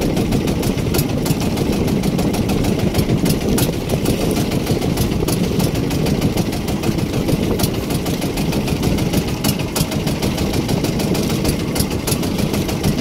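Outrigger fishing boat's engine running steadily with a fast, even chug, with scattered sharp clicks over it.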